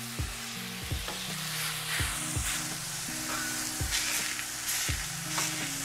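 Thin ground-beef burger patties sizzling and crackling on a hot cast iron griddle. A background music beat with low steady notes plays underneath.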